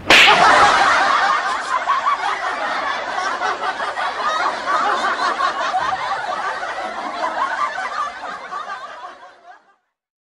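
Laughter, loudest at the start and slowly fading out near the end.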